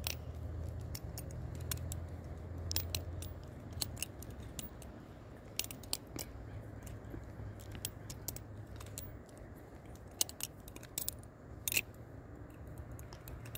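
Butterfly knife (balisong) being spun through rollovers in the hand: its handles and pivot click and clink in quick, irregular taps.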